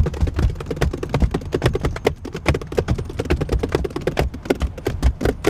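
Hands drumming on a car's steering wheel and interior, a fast run of slaps and taps with low thumps under them.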